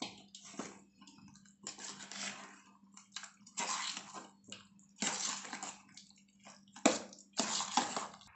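A spoon stirring curd into mashed cooked rice in a stainless-steel bowl: wet squelching strokes in irregular spells, with one sharp clink of the spoon against the bowl about seven seconds in.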